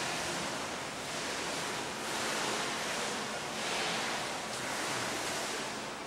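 Bridgeport Interact I CNC vertical milling machine running its program, heard as a rushing hiss that swells and fades about every one and a half seconds.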